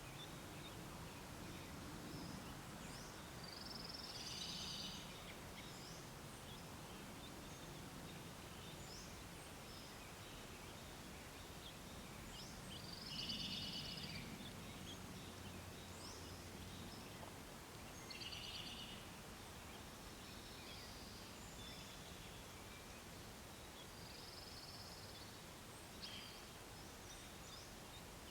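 Faint outdoor ambience with small birds calling: a short high trill repeats four times, several seconds apart, among scattered brief chirps.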